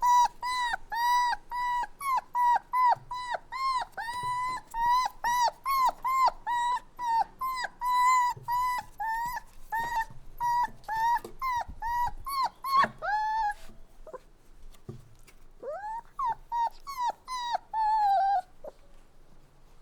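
Puppy crying: a quick run of short, high-pitched whimpers, about two a second. It breaks off about two-thirds of the way through, and after a short pause a few rising whines follow.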